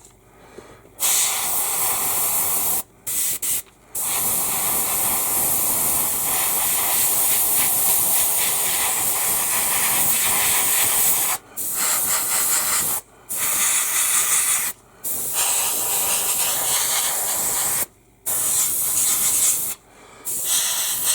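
Airbrush blowing air over small plastic model parts on the sprue to clear off cat hair and dust: a loud hiss of compressed air in a series of blasts, mostly several seconds long, with short breaks between them.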